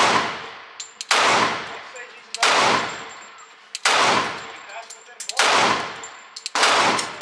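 Glock 30S .45 ACP pistol fired six times at a slow, even pace, about one shot every 1.3 seconds. Each shot is a sharp crack followed by a long echo off the walls of an indoor range.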